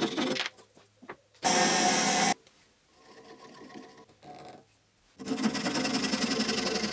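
Fine-toothed hand saw cutting through a small wooden pen blank in quick back-and-forth strokes, heard at the start and again from about five seconds in. About a second and a half in comes a brief loud hiss lasting about a second, followed by a quieter stretch.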